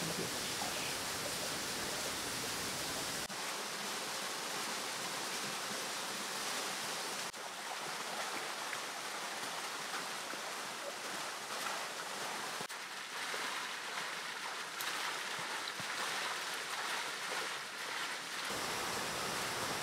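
Steady outdoor rushing noise, with abrupt shifts in its tone about three, seven, twelve and eighteen seconds in, where the recording cuts between clips.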